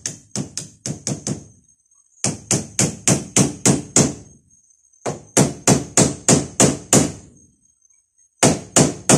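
A 1 to 2 pound hammer driving small big-headed tacks: quick runs of sharp strikes, about four a second, in four bursts with short pauses between.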